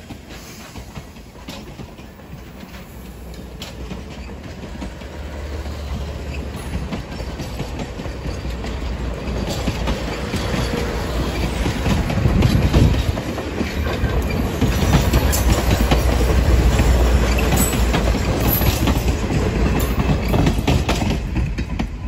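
Train hauled by steam locomotive 4501 running by on the rails, with a low rumble and wheels clicking over the rail joints. It grows louder over the first dozen seconds and stays loud.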